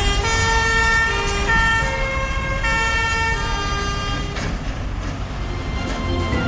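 Music: a melody of held notes stepping up and down over a low steady rumble.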